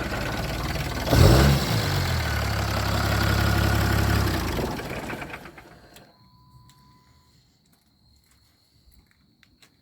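6.7 L Cummins inline-six turbo diesel running with a loud flare about a second in, idling for a few seconds, then stalling and dying away around five seconds in. Afterwards only faint clicks and a thin steady tone remain.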